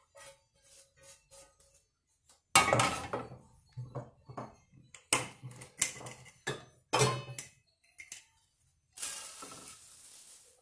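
Cookware clanking: a frying pan and utensils knock sharply against a stainless-steel bowl and the gas stove grate, about seven ringing strikes. Near the end comes a steady rushing hiss as rolled oats are poured from a glass jar into the frying pan.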